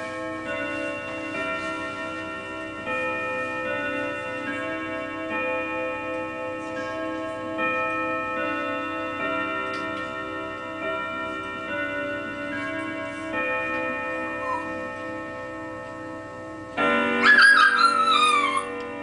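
Grandfather clock playing its hour chime melody, one ringing note after another, each note sustained and overlapping the next. Near the end a Shih Tzu starts howling along to the chime, a loud howl that slides down in pitch.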